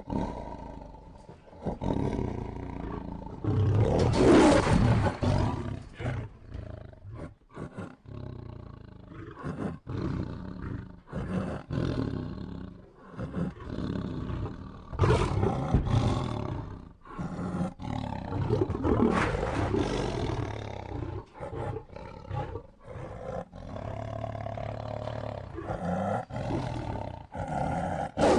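Lions fighting: a run of rough roars and snarls one after another, broken by short pauses, the loudest roars about four, fifteen and nineteen seconds in.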